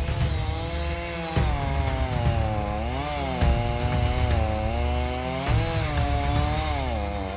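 Chainsaw cutting into a tree, its engine pitch sagging under load in the cut and climbing back again and again. The sound changes abruptly a few times.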